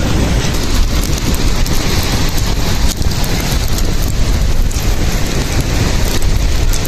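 Wind buffeting the microphone: a loud, steady rush of noise with a heavy low rumble.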